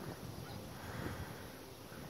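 Outdoor background noise: an uneven low rumble of wind on the phone's microphone over a steady hiss.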